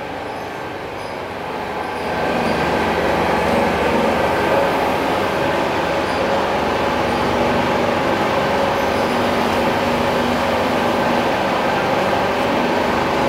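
Coconut-charcoal briquette extruder running: a steady mechanical hum with a few held tones over a dense machine noise, growing louder about two seconds in and then holding level.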